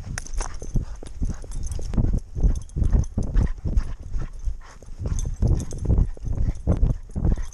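A running dog's footfalls and body jolts picked up through a camera harness on its back, giving a rhythmic run of low thuds.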